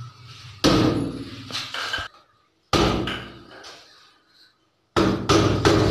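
Sharp blows against a wooden door: two separate impacts, each dying away and then breaking off abruptly, followed near the end by a quicker run of repeated knocks.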